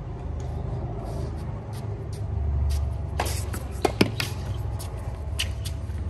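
A few sharp knocks of a tennis ball bouncing on a hard court, irregularly spaced in the second half, heard over a steady low rumble.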